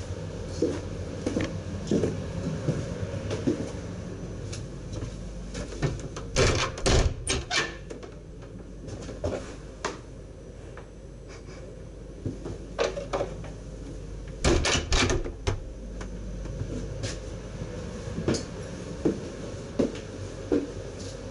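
Footsteps on the stairs and the vestibule floor, with two clusters of loud clunks about six and fifteen seconds in as doors are opened and shut, over a steady low hum from the train's equipment.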